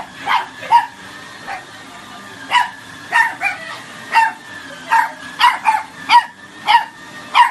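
Corgi puppy barking: a run of about a dozen short, high-pitched yapping barks, roughly two a second.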